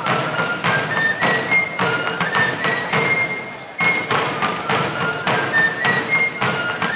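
Fife-and-drum band playing a dance tune: a high piped melody stepping up and down in short held notes over a steady beat of field drums.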